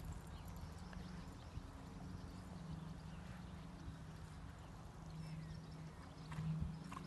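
Faint hoofbeats of a grey horse cantering on a sand arena, over a steady low hum.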